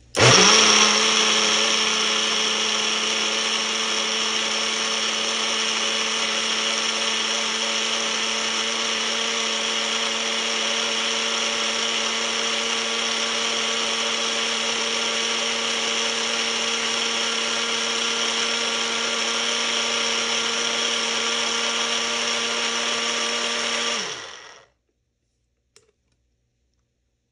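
Ninja Fit personal blender's motor running at a steady pitch, blending celery, carrot and apple with juice. It starts abruptly, runs for about 24 seconds, then winds down with a falling pitch and stops.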